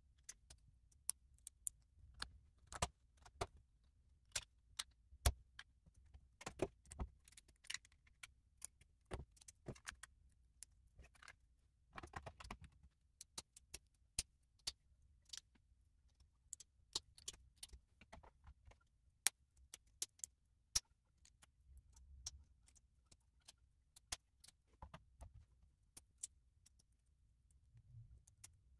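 LEGO plastic plates and bricks being pressed together and handled. They make an irregular run of sharp clicks and light clatter.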